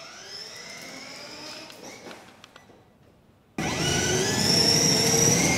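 An electric motor whining: its pitch rises over the first couple of seconds and fades out, then a louder steady whine starts suddenly about three and a half seconds in.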